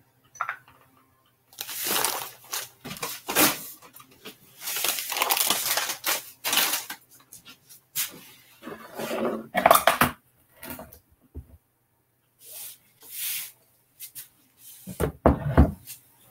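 Irregular kitchen handling noises: rustling and clattering as things are moved about the counter, with a few heavy thuds near the end.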